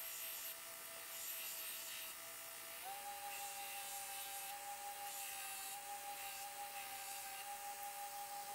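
Belt grinder running with a steel test piece held against the abrasive belt over a homemade curved S-grind platen, a steady rubbing hiss of grinding. The motor's whine steps up in pitch about three seconds in.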